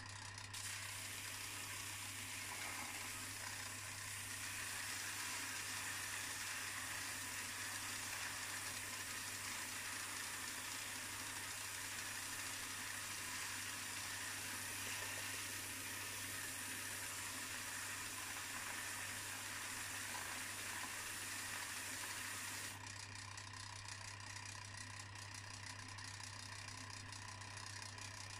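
Belt sander running with a steady motor hum while an iron clock part is pressed against the moving abrasive belt, giving a steady grinding hiss that stops about 23 seconds in as the work comes off the belt. The belt is grinding black scale off the iron, slowly.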